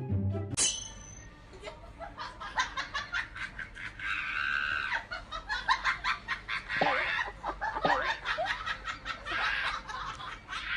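People laughing in quick, repeated bursts, after a short high-pitched squeak about half a second in.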